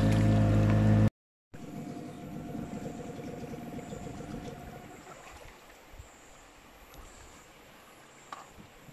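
Boat motor running steadily, cut off abruptly about a second in. A much quieter hum follows and fades after about five seconds, leaving faint outdoor sound with a few soft knocks.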